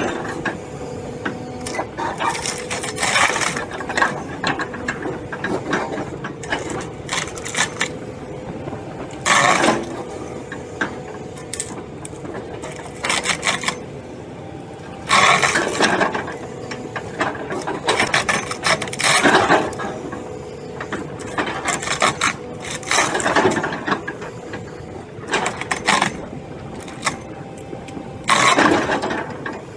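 Machinery running with a steady hum, broken every few seconds by loud grinding bursts that last about a second each.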